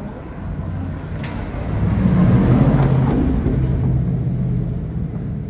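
A motor vehicle's engine running close by, swelling to its loudest about two to three seconds in and then easing off, with a short sharp click a little after one second.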